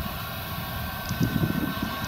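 Claas Lexion combine harvester running at a distance while threshing rapeseed, with a faint steady whine over a low rumble that swells and fades unevenly, as wind buffets the microphone.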